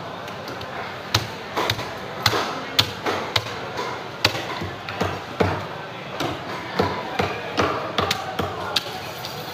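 Heavy cleaver striking a fish on a thick wooden chopping block: a run of sharp knocks at an uneven pace, roughly one or two a second.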